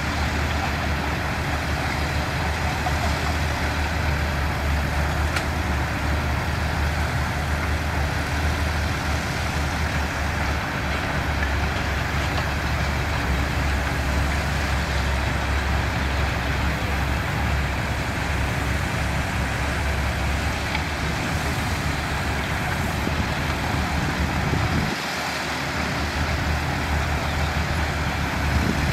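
Diesel engine of heavy construction machinery running steadily with a low, even engine note, its lowest tones dropping out briefly near the end.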